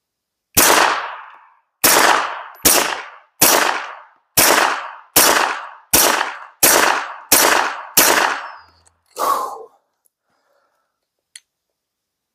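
A 9mm Glock 19 pistol firing a quick string of about ten shots, roughly one every three-quarters of a second, each with a short decaying tail, followed by one duller report about a second after the string.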